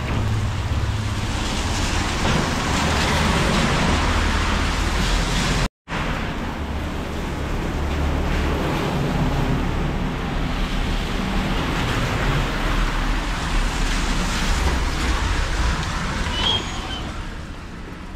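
Heavy rain pouring onto a street and pavement: a steady, loud hiss with a low rumble underneath. It cuts out for an instant about six seconds in.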